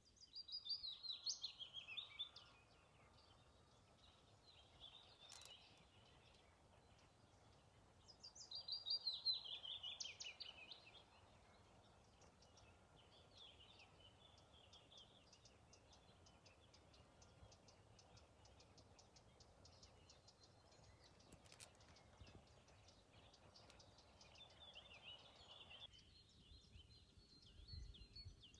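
Songbirds singing in woodland: two clear descending trilled phrases of about two seconds each, one near the start and one about eight seconds in, then softer scattered chirps, over a faint steady background hiss.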